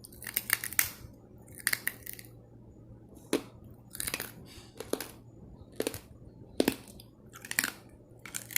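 Hard, crunchy seasoned pork rind strips being bitten and chewed close to the microphone: a run of loud, sharp crunches, about one every half second to a second.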